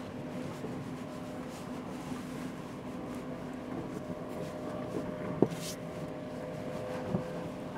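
In-cab noise of a Rivian R1T electric pickup crawling along a rutted dirt trail: a steady low hum and rumble, with one sharp knock a little past halfway, followed by a brief hiss, and a softer knock near the end.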